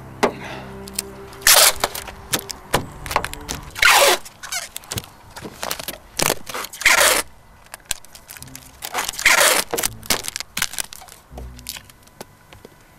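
Brown packing tape being pulled off the roll in several loud ripping strips, with crinkling and small clicks as it is pressed down over a car's window gap around a garden hose.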